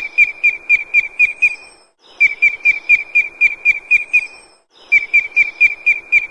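Booted eagle calling: rapid series of shrill, high whistled notes, about five a second, in runs of roughly two seconds broken by short pauses.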